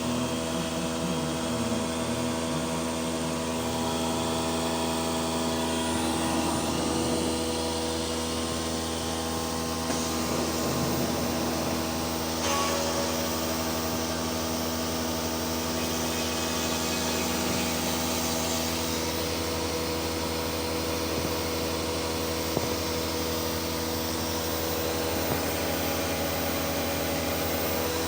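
CNC machine running under test: a steady motor whir made of several held tones over a noisy hiss, with a few faint ticks.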